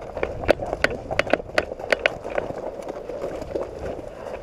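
Footsteps of people running over rough ground: a quick, uneven run of footfalls that thins out after about two and a half seconds.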